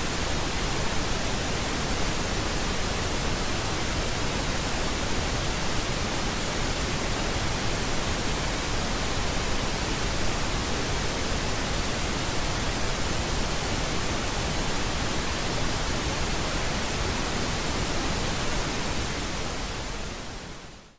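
Pink noise: a steady, even hiss that fades out over the last second or two.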